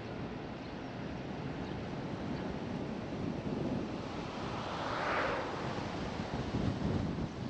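Steady tyre and wind rush from a car driving on a country road, with wind on the microphone. About five seconds in, an oncoming car passes with a short swelling whoosh that rises and fades.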